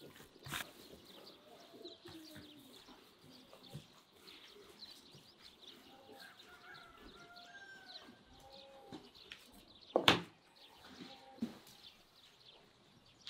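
Gloved hands working chunks of raw seasoned meat in a tray: faint wet handling sounds, with birds calling in the background and one sharp slap about ten seconds in.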